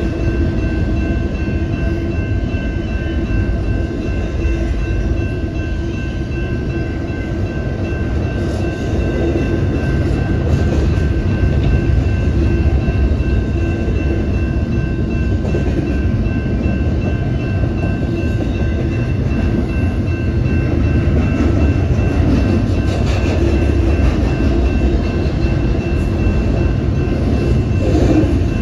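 Train rolling past, a steady heavy rumble of rail cars with a faint steady whine over it.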